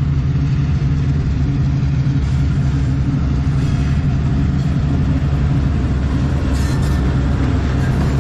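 Diesel freight locomotives running under power with a steady, deep engine drone as they come closer. A brief higher hiss comes in about six and a half seconds in.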